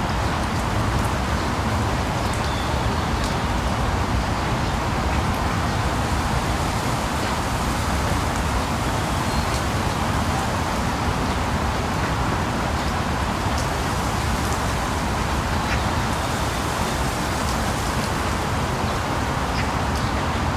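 Steady rain, cutting in suddenly out of silence and holding at one level, with a few faint ticks.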